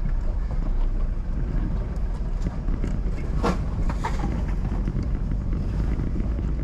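Steady low rumble of a car driving along a road, with a sharp knock about three and a half seconds in and a fainter one just after.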